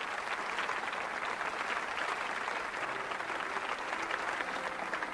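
Studio audience applauding steadily. A few soft held musical notes come in underneath about three seconds in.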